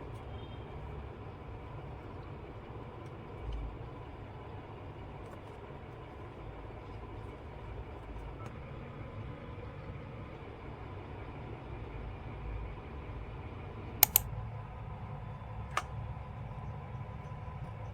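Steady low background hum, with a sharp double click about fourteen seconds in and a single click about two seconds later.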